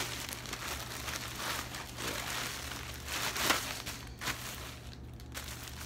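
Clear plastic clothing bags crinkling and rustling as they are handled, loudest about three and a half seconds in, with a sharp click shortly after.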